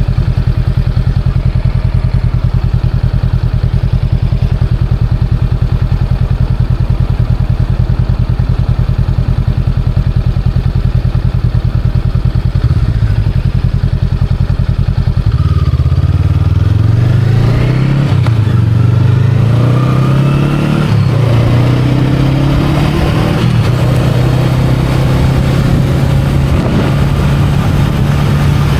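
Honda Rebel 500's parallel-twin engine idling steadily, then about halfway through revving and pulling away, the pitch climbing and dropping back at each of several gear changes before settling into a steady run.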